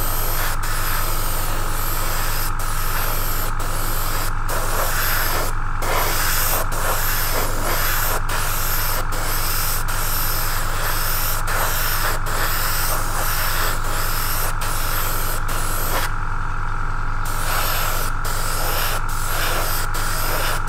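Gravity-feed airbrush spraying paint in short passes: a loud air hiss that cuts out briefly about once a second and pauses for about a second near the end. Under it runs the steady low hum of the airbrush compressor.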